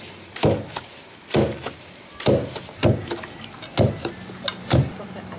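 Wooden pestle pounding fufu (boiled cassava and plantain) in a wooden mortar: about six heavy thuds, roughly one a second.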